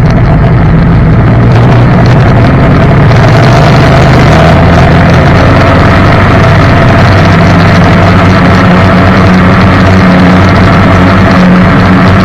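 Jet boat's engine running steadily and loud, close to the microphone, with slight shifts in pitch a couple of times.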